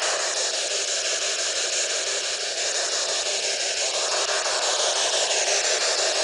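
Ghost-hunting spirit box (radio sweep device) putting out loud, steady static hiss, with faint wavering fragments under the hiss.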